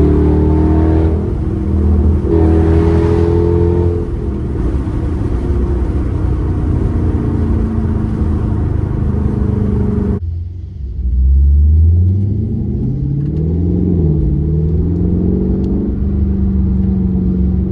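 Car engine heard from inside the moving car, revving and pulling under acceleration, its pitch rising and falling, with wind hiss over it. About ten seconds in the hiss cuts out suddenly, and the engine note climbs again from low.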